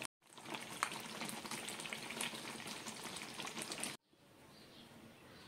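Thick tomato spaghetti sauce sizzling and bubbling in a wok, with many small pops and spatters. About four seconds in it cuts to a much quieter, even hiss.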